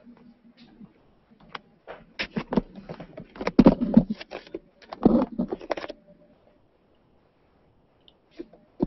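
Rattling clatter of handled objects, a run of quick clicks and knocks lasting about four seconds, loudest in two bursts near the middle.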